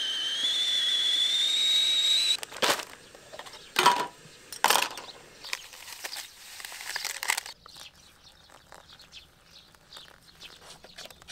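Stainless-steel stovetop whistling kettle whistling at the boil, its pitch creeping up, cut off suddenly after about two seconds. Then come a few sharp clicks and knocks and the rustle of instant oatmeal packets being torn open and emptied into a bowl.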